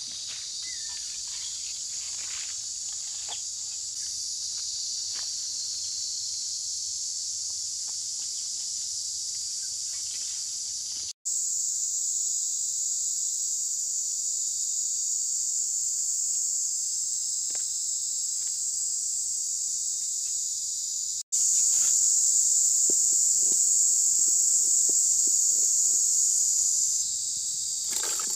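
Steady high-pitched drone of insects in the forest, with soft footsteps on dry leaves in the first few seconds. The drone breaks off twice for an instant and comes back louder each time.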